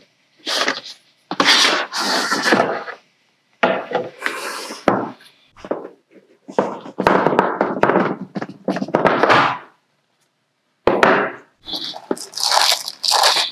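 A cardboard keyboard box being handled and opened: scraping and sliding noises with thunks as it is turned and set down on the desk, then plastic wrapping rustling near the end. There is a pause of about a second roughly ten seconds in.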